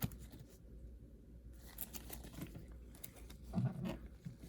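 Trading cards handled by hand: faint scattered taps and rustles of cards being flipped and slid into plastic sleeves, with a brief louder low sound about three and a half seconds in.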